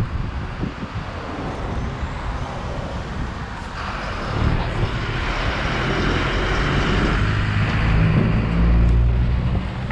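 A coach bus driving past close by. Its engine rumble and tyre noise build from about halfway through and are loudest near the end, over steady road traffic.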